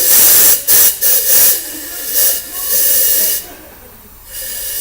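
Compressed air hissing in a series of blasts from a blow gun, pressurising the port behind a freshly lapped valve for a leak check, with water in the combustion chamber to show any bubbles. A long blast, several short ones, a pause, then it starts again near the end.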